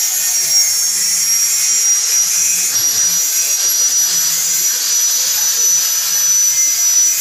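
A high-speed electric power tool running steadily at full speed, giving a loud, even high-pitched whine with hiss.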